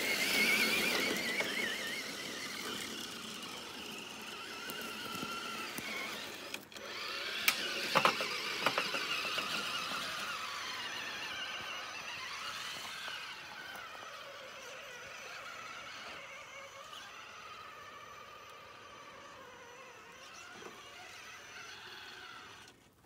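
Traxxas TRX4 RC crawler's electric motor and drivetrain whining as it drives, the pitch wavering up and down with the throttle. A few sharp clacks come about eight seconds in, and the whine grows fainter toward the end as the truck moves away.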